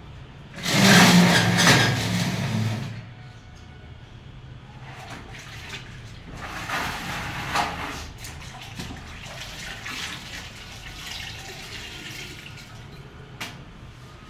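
Water splashing loudly onto a concrete floor for about two seconds near the start, then quieter sloshing and dripping as a floor cloth is dipped into a plastic bucket of water and wiped over the wet floor.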